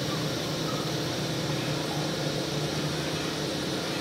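A steady machine hum with an even hiss.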